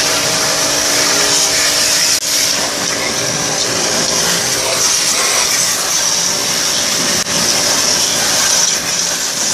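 Pressure washer running and spraying water: a loud, steady hiss that dips briefly twice.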